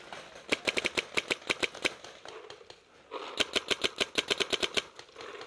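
Paintball marker firing two rapid strings of shots, about a dozen sharp pops each at roughly eight a second. The first string starts half a second in and the second about three seconds in, with a short pause between them.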